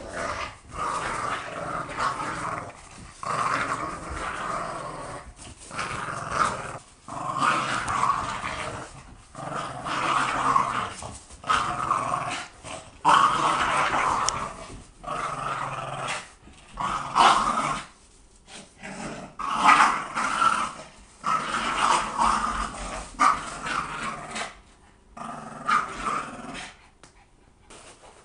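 Boston terrier puppies play-growling in repeated bursts of a second or two as they tussle over a toy, tapering off near the end.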